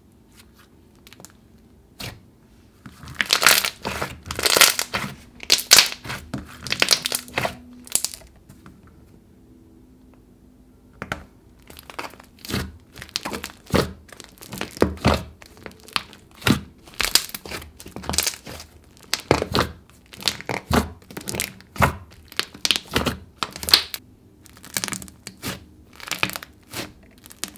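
Puffy pink slime with clay mixed in, being stretched, poked and pressed flat by hands, giving many small sharp pops and clicks. There is a lull about eight seconds in, then the pops keep coming again.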